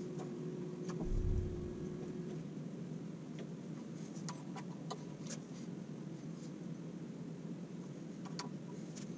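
Light clicks and taps of metal parts as a bandsaw's roller guide bearing assembly is slid and adjusted by hand, a scattered handful bunched near the middle and one more near the end. A soft low thump comes about a second in, over a faint steady hum.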